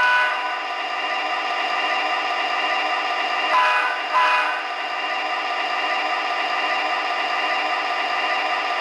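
Sound system of an MTH HO-scale F7 diesel model locomotive playing a steady diesel engine sound through its small onboard speaker, thin and with no deep bass. A horn blast cuts off just at the start, and two short horn toots follow about three and a half and four seconds in.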